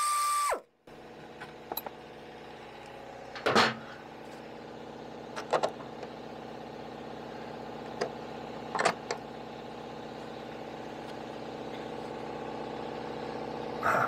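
A power drill spinning a socket on an extension runs steadily, then stops about half a second in. After that a steady hum of several pitches fills the background and slowly gets louder, broken by a few light metallic clinks as the snowmobile's speedometer drive housing is worked loose by hand.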